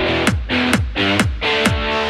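Background electronic dance music: a steady kick drum at about two beats a second under held synth chords.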